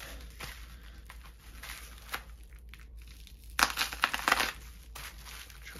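Packaging crinkling and rustling as a parcel is opened by hand, with a louder burst of crinkling about three and a half seconds in that lasts about a second.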